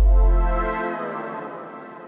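Background music: a held chord over a deep bass note, both fading, with the bass dying away about a second in.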